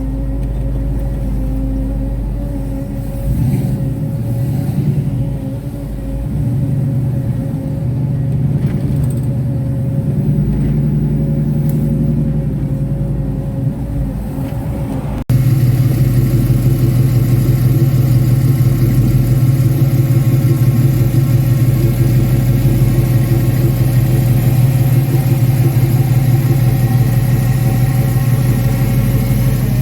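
LS V8 engine and exhaust of a car being driven, the engine note rising and falling with the throttle; about halfway through it cuts to a louder, steady engine note.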